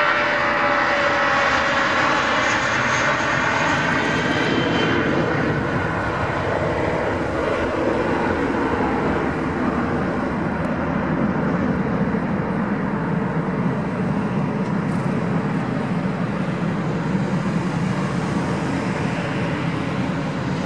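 Airbus A320-232's IAE V2500 turbofan engines at takeoff thrust as the jet passes and climbs away: a high whine falling in pitch over the first few seconds, giving way to a deep, steady rumble that slowly fades.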